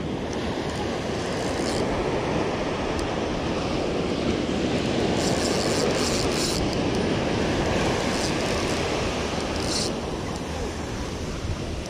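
Ocean surf washing against a rocky shore, with wind rushing over the microphone; the surge swells through the middle and eases near the end.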